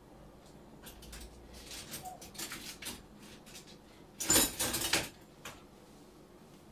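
Plastic dishes being handled at a kitchen sink and dish rack: a few light knocks and rattles, then a louder clatter lasting under a second, a little past the middle.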